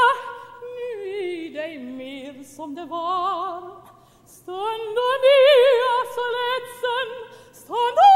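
Operatic soprano singing a Swedish folk song unaccompanied, with a wide vibrato on long held notes. She breaks off briefly about four seconds in, comes back louder, and near the end slides up into a high note.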